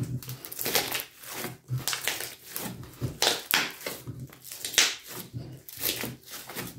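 A large lump of sticky slime being kneaded and squeezed by hand on an aluminium tray: irregular squelches and sticky pops, several each second.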